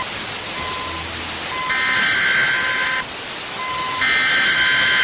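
Electronic emergency alert alarm: a short beep repeating about once a second, with two longer, harsh buzzing blasts of several high tones sounded together, starting about two and four seconds in and each lasting over a second.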